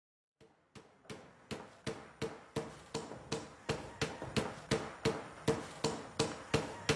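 Hand hammering in metal chasing work: a steady run of blows, about three a second, each with a short metallic ring. The blows start faint and grow louder over the first second or so.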